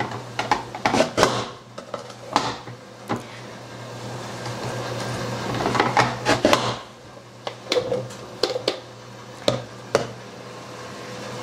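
A hand-pressed plastic Starfrit vegetable chopper in use: a string of sharp plastic clacks and knocks as the hinged lid is opened, snapped shut and pressed down, forcing raw potato through the dicing grid.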